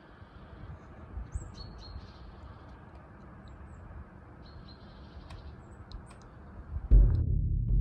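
Small birds calling several times: short high chirps and thin whistled notes, some dropping in pitch, over a steady low rush of outdoor background noise. Near the end a loud music track with a deep drum cuts in suddenly.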